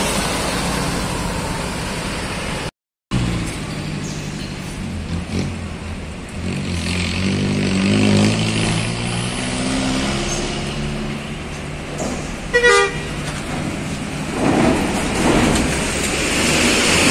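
Diesel coach buses driving slowly past close by, engines running at low revs as a bus rolls off a ferry's bow ramp, with one short horn toot about twelve and a half seconds in.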